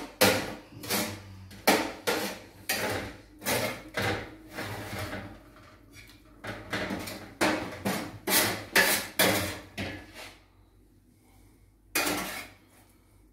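Cutlery clinking and knocking on plates during a meal: a run of sharp separate strikes, one or two a second, which stops about ten seconds in, then one more strike near the end.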